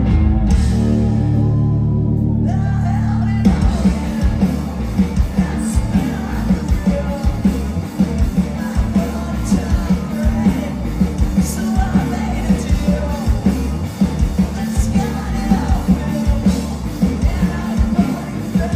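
Rock band playing live through a stage PA, with electric guitars, bass guitar and drums. A chord rings out held for the first three seconds or so, then the full band comes back in with a driving beat.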